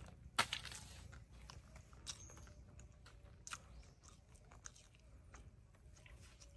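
A person chewing a cooked wild egg close to the microphone, with small wet mouth clicks. A sharper click about half a second in is the loudest moment, with a few more at about 2 and 3.5 seconds.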